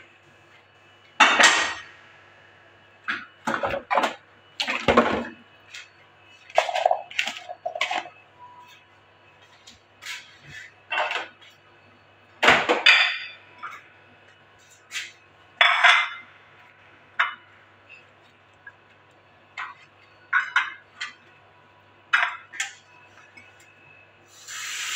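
Dishes and kitchen utensils clattering and clinking as they are handled and set down, in scattered separate knocks; tap water starts running near the end.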